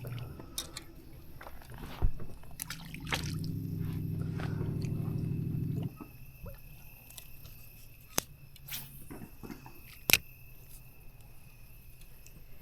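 A steady low hum runs for about three seconds and cuts off suddenly, among a few sharp knocks and small splashing and dripping water sounds.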